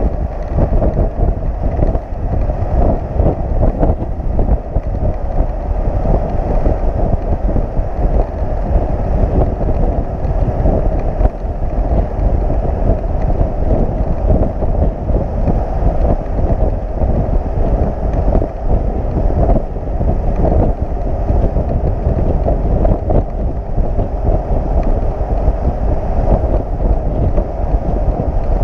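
Wind buffeting the microphone over the road noise of a flatbed tow truck driving at speed, a steady, rough rush heavy in the low end.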